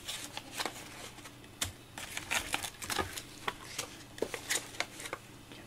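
Irregular small clicks and rustles of plant stems and small pots being handled and set down on a windowsill.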